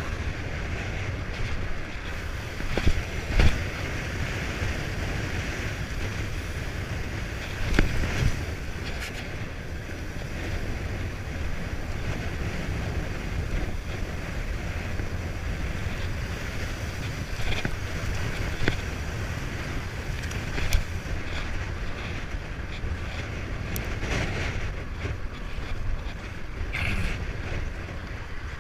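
Wind rushing and buffeting against the microphone, steady throughout, with a few sharp knocks and rattles standing out about three seconds in and about eight seconds in.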